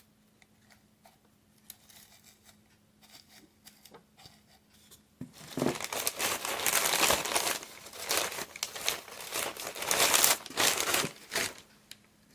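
Dry Spanish moss being handled and pulled apart: faint rustles at first, then a loud, dense crackling rustle from about five seconds in that stops shortly before the end.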